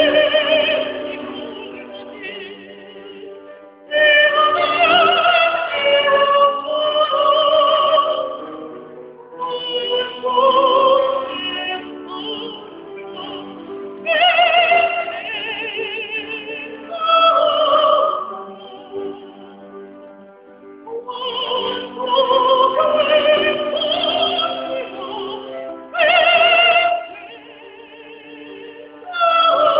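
Operatic singing in a high voice with strong vibrato, in phrases of a few seconds each with short breaks between, over a sustained accompaniment.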